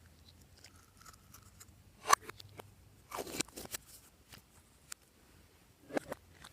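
Hands working glossy slime, giving sticky pops and crackles: a sharp pop about two seconds in, a run of crackles a second later, and another pop near the end.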